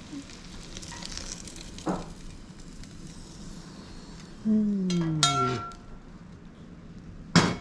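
Food sizzling steadily in a frying pan, with a falling tone and a few clicks about halfway through and a sharp clatter near the end.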